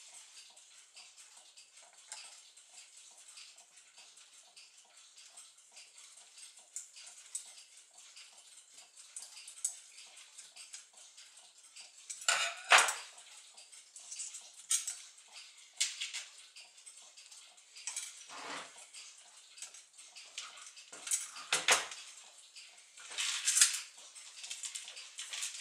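Metal clinks and clicks from a brass Gustav Becker clock movement being dismantled with a screwdriver: light scattered ticks at first, then from about halfway a run of louder sharp clinks and knocks as the plates are handled.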